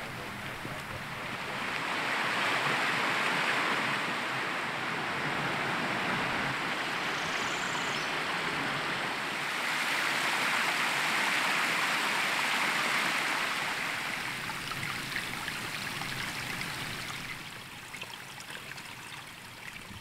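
Small mountain stream rushing over rocky cascades: a steady rush of water that swells louder twice and fades near the end.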